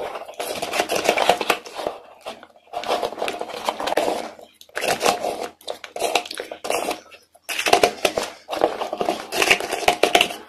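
Wet mouth sounds of eating a thick paste off a spoon: squishing and smacking, in four bursts with short pauses between them.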